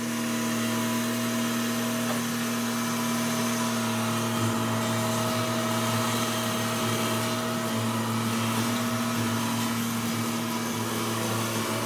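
Engine of a 1997 Ford New Holland LX865 skid loader running steadily, with a constant whine over the engine noise.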